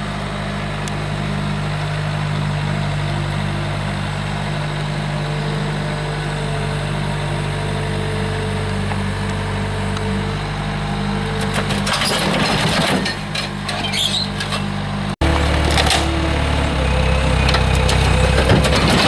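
Chevy pickup's 5.3 L V8 running steadily, with a burst of crunching and cracking clatter about 12 seconds in. After an abrupt cut near the end, the engine runs louder and deeper, with more clatter.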